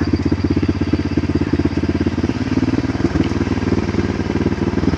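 Victory MRX 150 motorcycle's single-cylinder engine, bored out to 190 cc, running at low revs with an even beat while the bike is ridden; the beat changes slightly a little over two seconds in.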